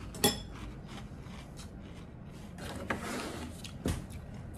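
A spoon clicks sharply once against a ceramic cereal bowl, then quiet chewing of a mouthful of crunchy cereal with milk, with a couple of light clicks.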